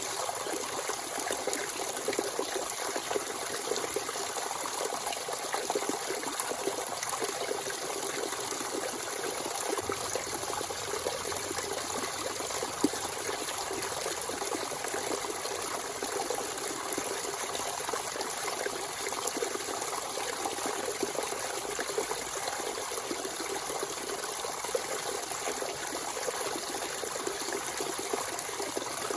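Natural spring water flowing and trickling steadily, a continuous splashing rush. A single brief louder splash comes about halfway through.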